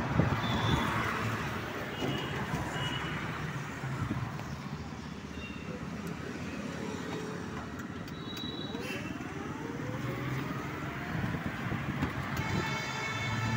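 Steady road and traffic noise from a rickshaw driving on a wet road in rain, heard from the driver's seat, with a short rising whine about two-thirds of the way through.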